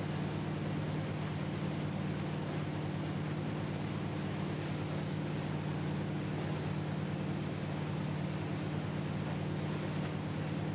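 A wake boat's engine running at a steady, even hum, over a constant rushing hiss of wake water and wind.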